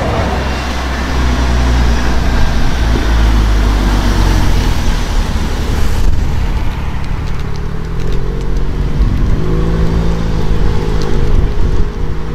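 Modified Volkswagen Golf 7 R's turbocharged four-cylinder engine driving off and accelerating: a deep exhaust rumble, then a rising engine note about two-thirds of the way through.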